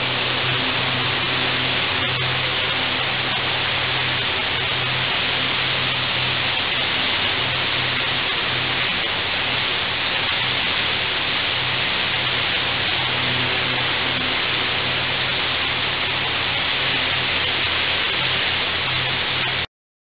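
High-pressure water jet from a hydroblasting lance hitting steel, a steady loud hiss like heavy rain over a low hum. It cuts off abruptly near the end.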